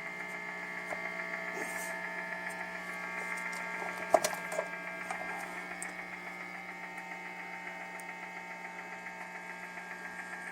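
Electrical interference hum and buzz through a bass amp, picked up by the bass's single-coil pickup. It holds steady and does not stop with the Wi-Fi unit unplugged. A sharp click comes about four seconds in.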